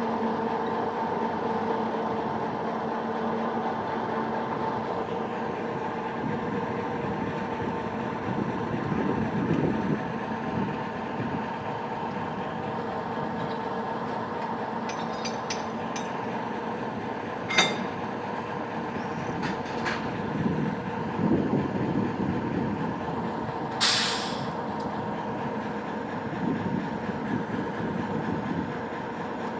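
Small diesel shunting locomotive (Köf) running with a steady engine drone, which swells for a couple of seconds about a third of the way in. A sharp metallic clank comes a little past halfway, and a short air-brake hiss sounds about four-fifths of the way through.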